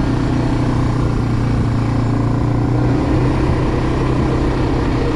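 Suzuki 400 ATV's single-cylinder four-stroke engine running steadily under way, its note dropping slightly about three seconds in.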